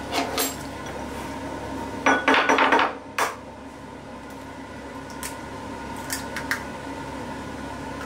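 Egg being cracked against a bowl: a quick run of sharp knocks about two seconds in and one more a moment later, then a few light clicks. A steady faint hum runs underneath.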